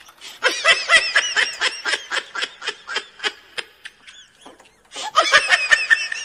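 Rapid, high-pitched laughter, a fast run of giggling pulses about five a second, that fades out after about four seconds and starts again about a second later.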